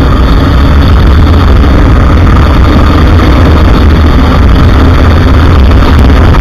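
Steady, loud wind rush on the mount camera's microphone, mixed with a KTM Duke 390's single-cylinder engine running at highway speed, around 100 to 120 km/h.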